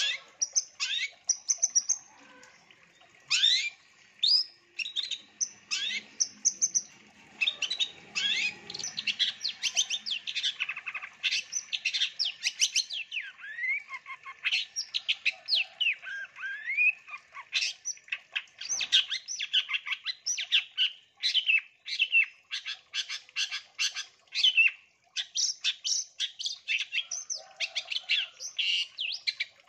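Long-tailed shrike (cendet) singing a long, rapid, varied song of high chirps, sharp clipped notes and rising and falling slurred whistles, full of mimicked calls of other birds, with a couple of short pauses.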